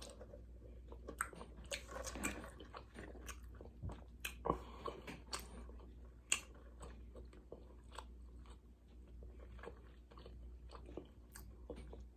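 Close-up chewing and biting of a fried chicken and glazed donut sandwich: irregular crunches and small mouth clicks over a low steady hum.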